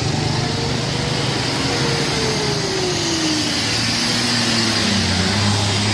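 Bus engine running with a steady rush of road noise as the vehicle drives by, a single tone falling in pitch about halfway through.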